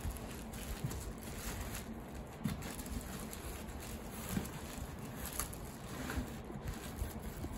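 Faint rustling of a cloth towel and tissue paper inside a cardboard box, with a few soft knocks as a plate is settled in among the packing.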